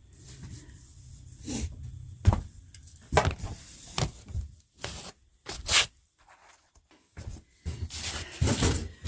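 Irregular knocks, bumps and short scrapes of hands and tools working on an old wall-mounted bathroom heater as it is taken down.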